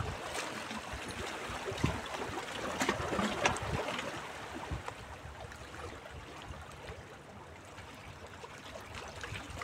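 Small sea waves lapping and splashing against shoreline rocks, with a few sharper splashes in the first few seconds and then a calmer wash.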